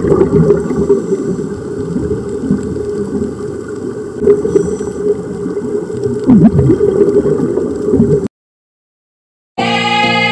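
Underwater bubbling and gurgling of air escaping from helmet-diving helmets, over a steady low hum. It cuts off about eight seconds in, and after a second of silence background music begins.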